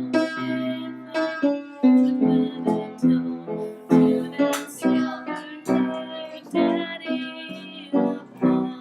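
Instrumental accompaniment without singing: chords struck in a steady rhythm, a little over two a second, each ringing briefly before the next.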